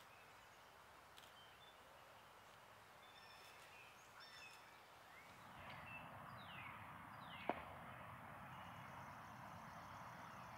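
Near silence with faint bird chirps and calls, some falling in pitch, and one faint click a little past the middle.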